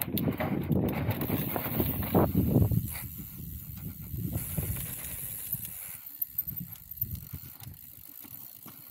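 Mountain bike riding along a dirt trail: tyre and frame rattle, loudest for about the first three seconds, then quieter with scattered clicks.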